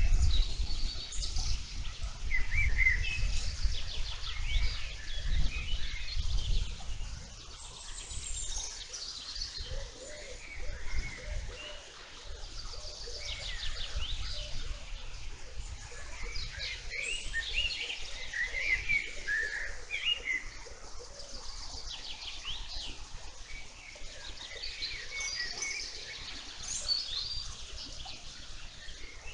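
Several birds singing and chirping, many short overlapping phrases from different birds. A low rumble sits under them for roughly the first seven seconds and is the loudest thing there.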